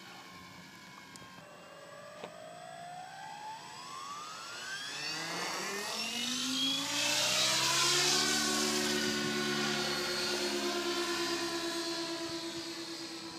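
Synergy E7SE electric RC helicopter spooling up: the motor's whine climbs in pitch and grows louder over several seconds, then holds steady with a fast pulsing from the rotor blades as the helicopter lifts off and climbs.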